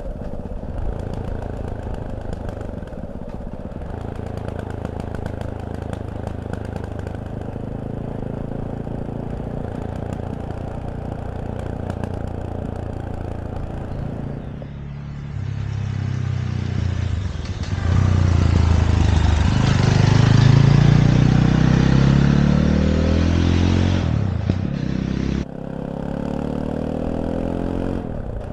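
Fantic Caballero 500's single-cylinder engine running steadily at low revs, then about halfway through accelerating hard with rising revs under a rush of wind. The revs ease off and the sound drops suddenly near the end, then the engine runs on more quietly.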